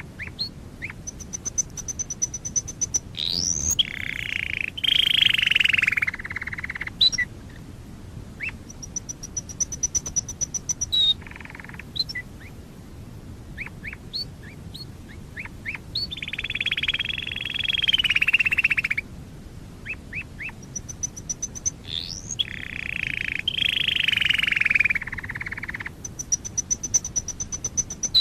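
Domestic canary singing: three long, loud rolling phrases of a few seconds each, set apart by high, fast trills of repeated notes and scattered short chirps.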